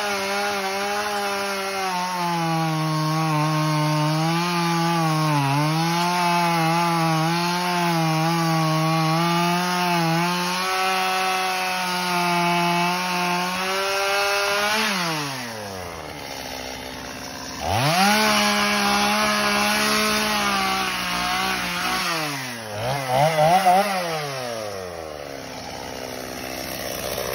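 Small chainsaw cutting through a log, its motor note sagging and recovering under load. About fifteen seconds in the note drops away, and then the saw is revved up and let down twice.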